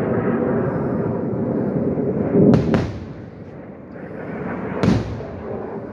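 Distant explosions of Iron Dome interceptors hitting rockets in the sky: two sharp booms close together about two and a half seconds in, and another near the end. Before the first booms there is a steady rushing roar.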